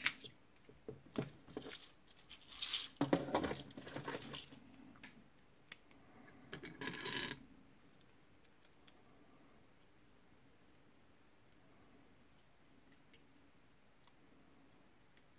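Small metal clicks and clinks of thin lock shims and tools being handled, with a longer scrape about seven seconds in as the shim is worked around the lock cylinder's plug. After that, only a few faint ticks.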